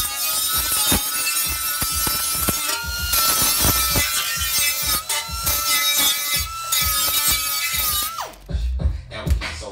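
Pneumatic die grinder with a small cleaning disc whining at a steady high pitch as it scrubs old gasket material off a steel oil pan's sealing flange. A little before the end it spins down with a falling pitch. Music with a steady beat plays underneath.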